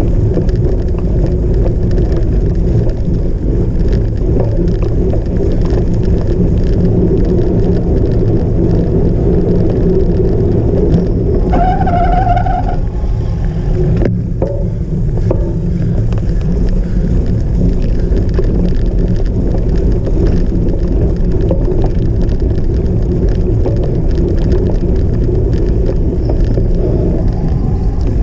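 Steady, loud rumble of a cyclocross bike being ridden over rough ground, heard from a camera mounted on the bike or rider. About twelve seconds in, a brief high-pitched tone lasts for about a second.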